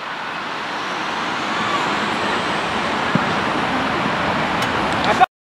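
Steady rushing background noise, slowly growing a little louder, with a faint knock about three seconds in; the sound cuts off abruptly near the end.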